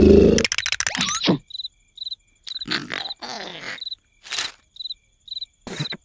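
A cartoon snore cuts off about half a second in, leaving night ambience of crickets chirping in regular short high chirps, broken by several brief comic sound effects.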